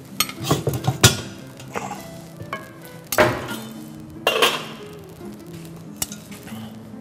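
Metal kitchen tongs clinking and clattering against a ceramic plate and bowl as raw chicken pieces are picked up and dropped into yogurt marinade, in several separate bursts. Soft background music plays underneath.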